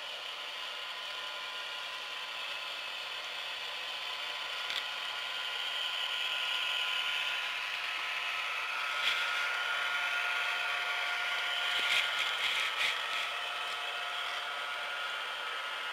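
HO-scale model diesel locomotives running on layout track: a steady electric-motor whir with wheel noise, growing louder from about six seconds in, and a cluster of sharp clicks about twelve seconds in.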